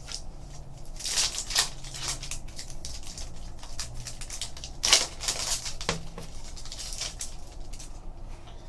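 Trading cards being handled and slid against one another, rustling in short bursts about a second in, around five seconds and again near seven seconds.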